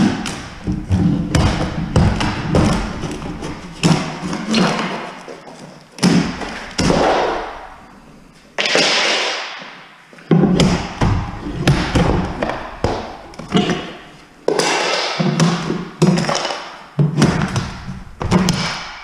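Hardwood floor boards being struck and pried up with a hand tool: a long run of heavy, irregular thuds and knocks, often several a second, with brief pauses between bursts.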